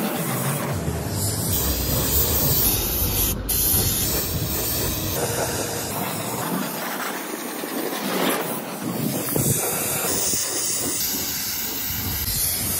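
Steady hiss of compressed air through a gravity-feed paint spray gun spraying paint onto a truck cab's panels. A low rumble runs under it for the first half and again for a few seconds after the middle.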